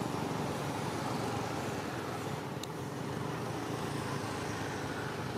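Steady low rumble of background motor traffic, with one faint tick about two and a half seconds in.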